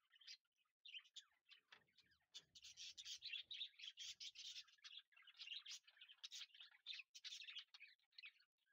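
Faint, busy chirping of small birds: many short high chirps overlapping, sparse at first and thicker from about two and a half seconds in.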